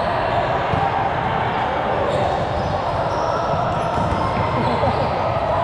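Indoor court ambience during a league match: a steady hum and background voices, with balls thudding on the hard floor.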